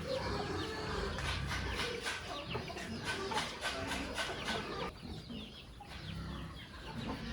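Chickens clucking, many short calls overlapping, with a brief lull about five seconds in.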